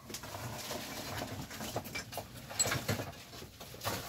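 Rummaging through a box of belongings: rustling with many light, irregular clicks and knocks as items such as DVD cases and cables are handled.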